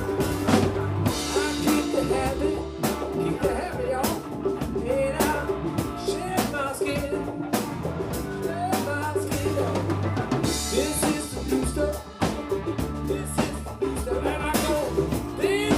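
Live band playing an instrumental passage: drum kit with snare and bass drum keeping a steady beat under sustained bass notes and bending lead lines.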